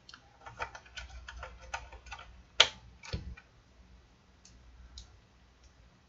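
A run of small, light plastic clicks and taps, with the sharpest click about two and a half seconds in and another just after. They thin out to a few faint ticks in the second half.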